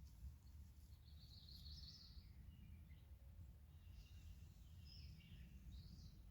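Faint birdsong, a few scattered calls and short phrases, over a low steady rumble.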